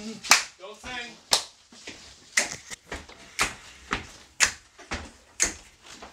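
Handclaps keeping a steady beat, about one sharp clap a second with softer ones in between. A voice is heard briefly about a second in.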